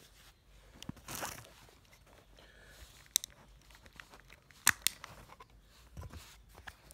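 Plastic wrapping crinkles briefly, then come sharp plastic clicks and snaps as the back cover of a Nokia 6230i mobile phone is pried off. The loudest is a pair of snaps just under five seconds in.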